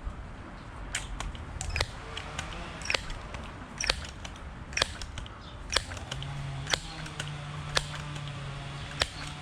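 A bird's sharp chip calls, repeated about once a second, each a quick high note dropping in pitch. A low steady drone comes in about six seconds in.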